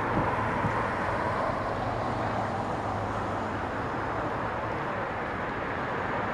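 Steady city street traffic noise: a tram running along the road among cars, with an even low hum under the road noise.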